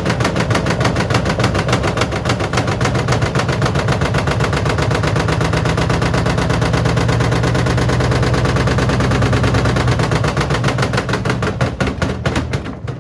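Whirlpool washing machine spinning with a 6-litre water bottle loose in the drum. The bottle bangs against the drum and glass in a very fast, continuous rattle over the steady hum of the spinning drum. The banging thins out near the end as the spin slows.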